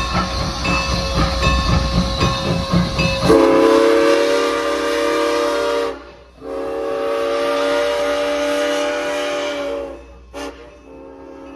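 Norfolk & Western 475, a 4-8-0 steam locomotive, running with a rhythmic rumble, then sounding its chime steam whistle: two long blasts and a short one, with another long blast starting at the very end, the pattern of a grade-crossing signal.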